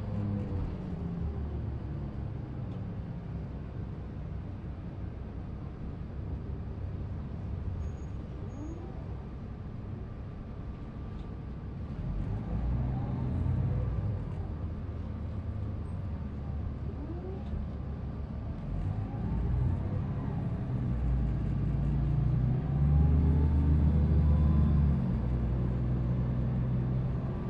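2005 New Flyer D40LF transit bus's Cummins ISL diesel engine and ZF Ecomat II automatic transmission running, with several rising whines as the bus speeds up. It gets louder about halfway through and again near the end.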